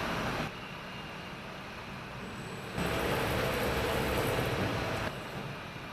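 GANNOMAT Concept Easy case clamp's electric drive running as the pressure beam travels on its screws, a steady mechanical hum. It gets louder, with a steady tone, from about three seconds in to about five seconds in.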